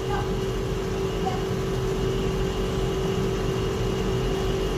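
A steady background hum with a constant low tone. Under it, hot water is poured in a thin stream from a gooseneck kettle onto ground coffee in a V60 paper filter: the first pour that blooms the coffee.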